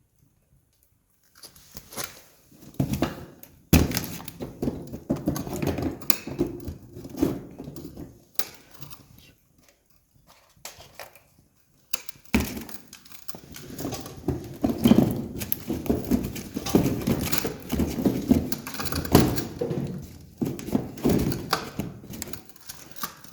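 Wood fire crackling and popping, with irregular knocks and thuds of wood. It starts about a second in and pauses briefly midway.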